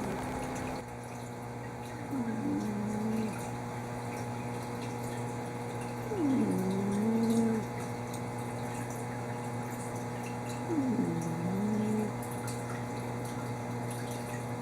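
Bengal cat snoring in deep sleep: three snores about four and a half seconds apart, each a drawn-out breath that drops in pitch and then holds. A steady low hum runs underneath.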